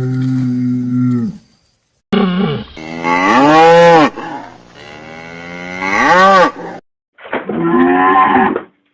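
Cattle mooing: four separate calls with silent gaps between them. The first is low and steady; the middle two are long bellows that rise high in pitch and fall again; the last is a shorter moo near the end.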